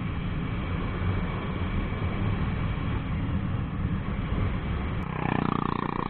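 Jawa 42's single-cylinder engine running steadily at cruising speed, with wind rumble on the microphone. About five seconds in, a second, higher engine note comes in as another motorcycle draws alongside.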